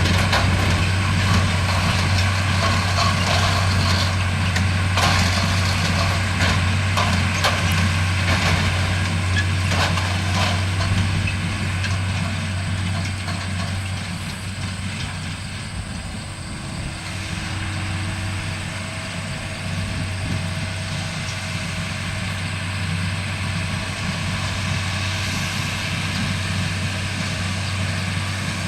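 Tractor engine running steadily under load while pulling a working hay baler, with the baler's mechanism knocking irregularly during the first ten seconds or so.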